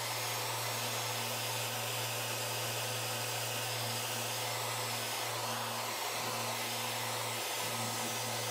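Festool Rotex RO 90 sander running steadily in eccentric (random-orbit) mode, sanding a wooden chair, with a steady low hum under the noise of the pad on the wood.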